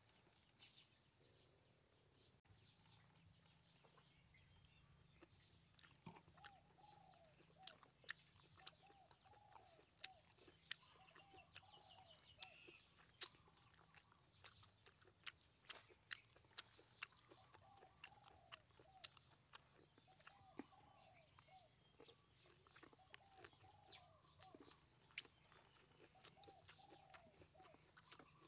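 Close-up wet chewing clicks and lip smacks from eating braised pork intestine, many sharp soft clicks starting a few seconds in. Behind them a bird calls over and over in short repeated phrases.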